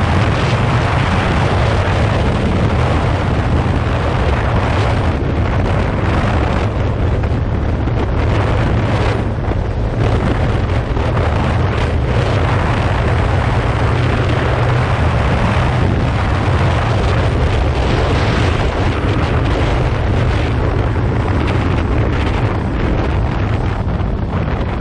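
Heavy wind rush on the microphone over the steady drone of a 2015 Yamaha FZ6R's 600 cc inline-four engine, ridden at a constant speed.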